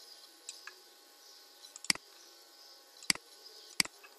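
Computer mouse clicking: three sharp single clicks, with a fainter click about half a second in, over faint steady background hiss.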